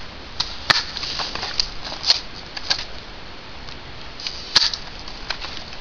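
Footsteps crunching through dry leaves, grass and pine needles, an uneven run of crackles, with two sharper snaps, one under a second in and one near the end.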